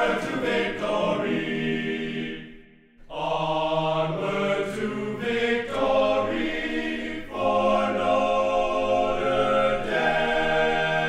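A choir singing held chords, with a short break about two and a half seconds in.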